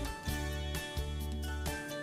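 Background music: an upbeat tune with plucked guitar and a steady bass, notes changing every half second or so.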